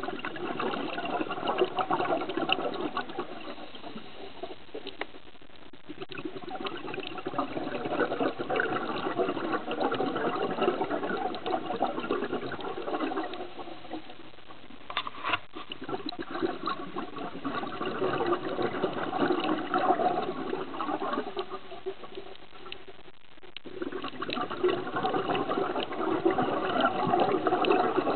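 Scuba diver's exhaled air bubbling from the regulator, heard underwater: long gurgling rushes lasting several seconds each, with short quieter breaks between them and a single click about halfway.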